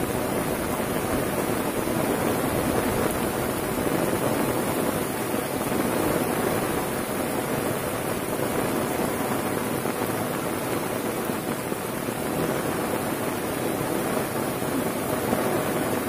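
Heavy rain falling steadily: a dense, even hiss with no breaks.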